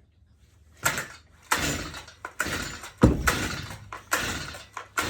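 Stihl MS 162 chainsaw being pull-started: about six quick rasping pulls on the recoil starter cord, the first about a second in, with no sign of the engine running. The engine has been hydrolocked with water.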